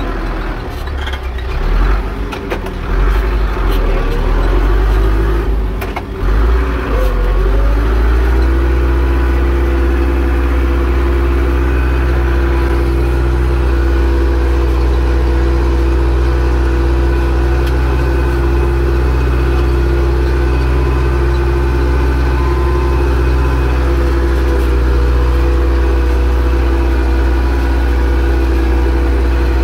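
Zetor 6245 tractor's diesel engine working under load, plausibly pulling a plow; uneven with a few knocks for the first several seconds, then running steadily from about eight seconds in.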